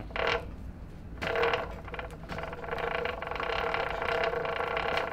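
Drive chain of a 1985 Honda ATC 70 turned by hand through its rear axle, running over a newly installed chain tensioner with a steady whirring hum and a fine rattle that settles in about a second in. The noise comes from the chain tensioner: it stops once the tensioner is loosened.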